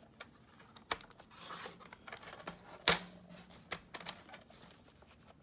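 Sliding paper trimmer's blade carriage pushed down its rail, cutting a sheet of paper: a short scraping slide and several sharp clicks, the loudest about three seconds in.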